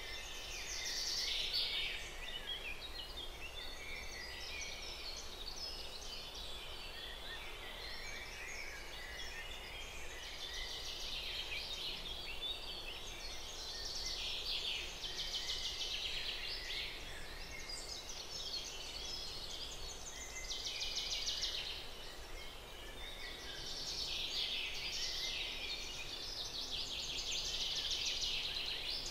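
A dense chorus of many small birds chirping and trilling without a break, a continuous birdsong ambience.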